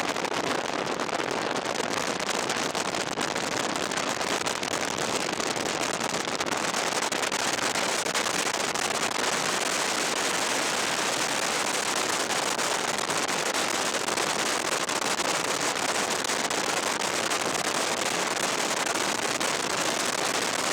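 Heavy rain and hail pelting a vehicle in a dense, steady clatter of countless small hits, growing a little harsher about six seconds in.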